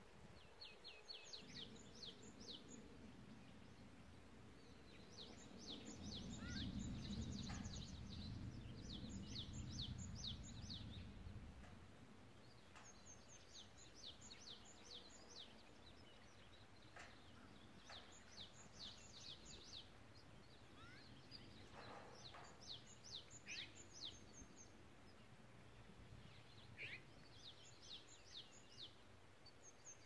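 A songbird singing faintly, repeating a short phrase of several quick, falling high notes every few seconds. A low rumble swells for several seconds in the first half.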